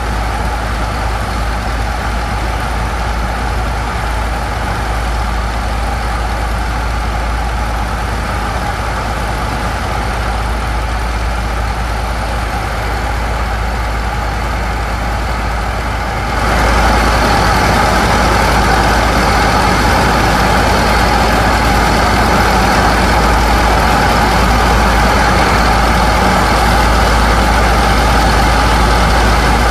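Diesel pump engines on a sand barge running steadily, with the rushing hiss of a high-pressure water jet washing sand into slurry. About halfway through, the sound steps up suddenly, louder and brighter.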